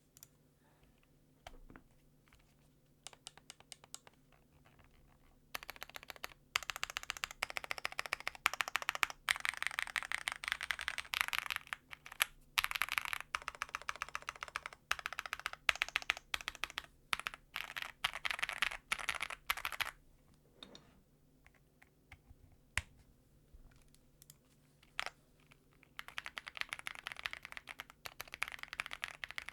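Typing on a Zoom65 mechanical keyboard with an aluminium case, polycarbonate plate, stock Ca Phe Sua Da linear switches and GMK keycaps. A few scattered keystrokes give way about five seconds in to a fast, steady run of typing. Around twenty seconds it drops back to slow single presses, and fast typing picks up again near the end.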